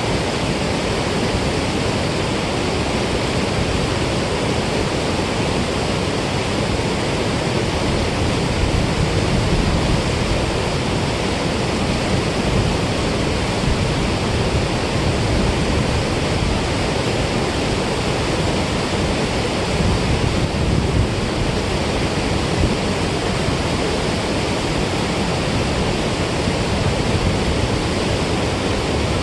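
Steady rush of water pouring out through a dam spillway, an even, unbroken roar of noise.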